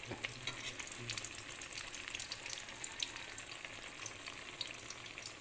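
Halved bananas deep-frying in hot oil in an aluminium wok: a steady sizzle with many small crackles and pops.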